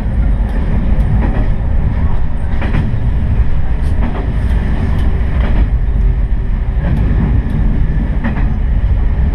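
Diesel railcar running along the line, a steady low rumble with the wheels clacking over rail joints every half second to a second or so.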